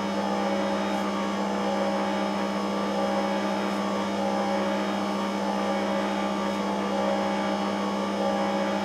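Electric stand mixer running at a steady speed, its motor giving a constant hum as it stirs a runny yeast pre-dough in a steel bowl.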